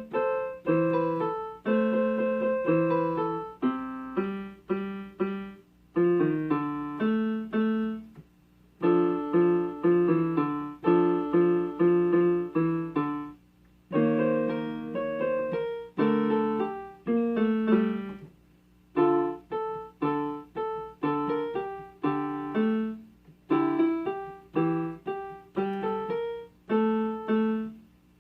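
Piano playing a piece in short phrases of chords and melody notes, each a few seconds long, with brief pauses between them.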